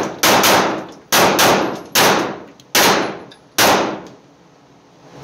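Five 9mm pistol shots from an Arex Delta Gen 2, fired a little under a second apart, each followed by a short echo off the walls of an indoor shooting lane.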